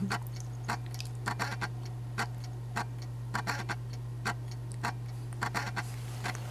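A string of short, irregular clicks, a few a second, over a steady low hum.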